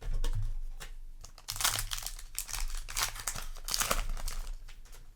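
Foil wrapper of a Yu-Gi-Oh! booster pack crinkling as it is torn open and handled: irregular sharp crackles, thickest in the middle stretch.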